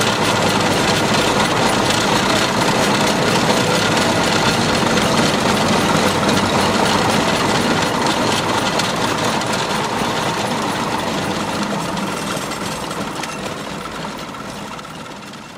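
Fowler steam ploughing engine working under load, winding the wire rope onto its drum to haul the plough in. The noise is steady and dense, then fades away over the last few seconds.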